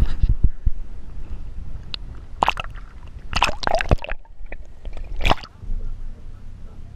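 Water sloshing and gurgling around a submerged camera, with a few sharp splashing sounds clustered between two and four seconds in and once more about five seconds in.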